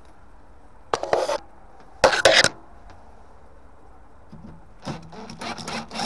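Two short scraping rubs about a second apart, then, from just past the middle, a cordless drill-driver whirring in short pulses as it drives a screw into a gas boiler's sheet-metal casing.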